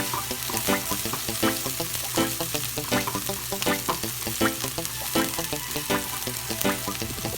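Menudo ingredients sizzling as they fry in a pan, with stirring, under background music with a regular beat of short notes.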